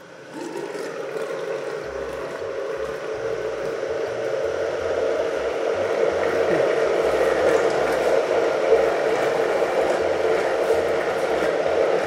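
Countertop blender running, blending a liquid cashew mixture. It grows louder over the first several seconds, then runs steadily.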